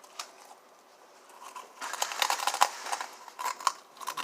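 Dry crinkling and crackling from dried seaweed snacks and their packaging being handled. It is a dense run of small crackles that starts about two seconds in and dies down near the end.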